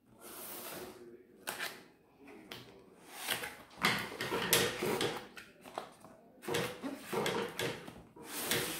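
Paper and a cardboard box being handled: irregular rustling, rubbing and sliding of cardboard, ending in a longer steady rub near the end.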